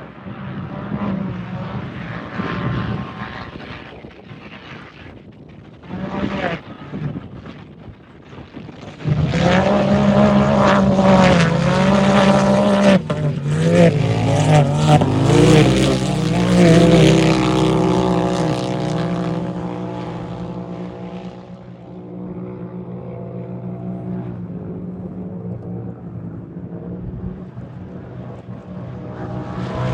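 Turbocharged UTV race engines running hard, their pitch wavering up and down. They grow loud suddenly about nine seconds in and ease off after about eighteen seconds to a steadier, quieter run.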